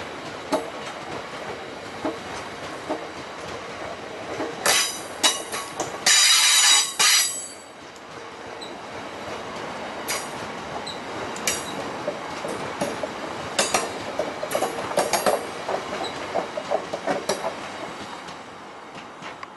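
DB Schenker freight train passing close by, its wheels clicking over rail joints over a steady rumble. Loud, high-pitched wheel squeal comes in bursts about five to seven seconds in, and there is a second run of rapid clicking later on.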